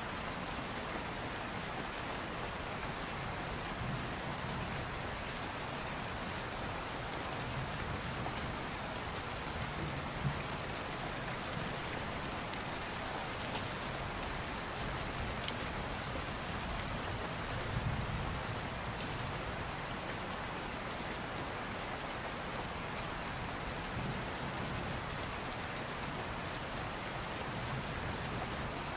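Steady rain falling, with scattered single drops ticking.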